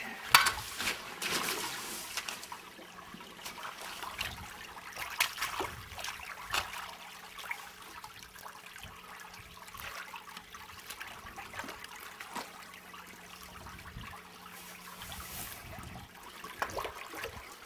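Shallow creek water trickling, with scattered sharp splashes and knocks as a person wades and works in the water and mud; the loudest comes just after the start.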